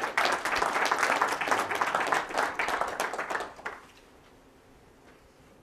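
Audience applause, many hands clapping at once, dying away after about four seconds.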